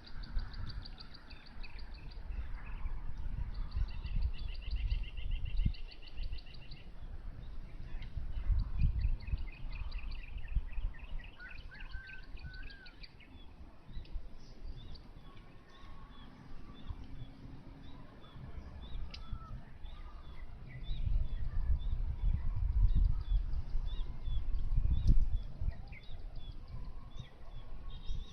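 Small birds calling in rapid trills for the first dozen seconds or so, then in scattered short chirps. Bouts of low rumble come and go at the start, around a third of the way in and again in the last quarter.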